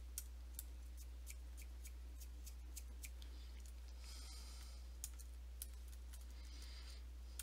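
Faint, irregular small clicks, about a dozen of them, over a low steady hum, with two brief soft hisses about four and six and a half seconds in.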